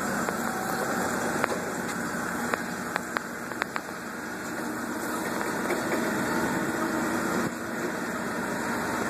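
Caterpillar forklift's engine running steadily while the driver works the controls to lift a stack of wooden pallets, with a few light knocks about two to four seconds in.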